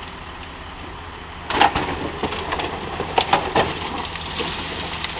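Komatsu excavator's diesel engine running steadily as the machine works the body of an old Dodge car. About a second and a half in, a run of sharp metal cracks, crunches and short creaks starts as the car is pushed over.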